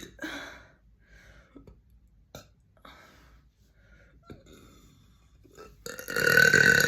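A person burping: after a quiet stretch with a few small clicks, a loud, long burp starts about six seconds in, held on a fairly steady pitch.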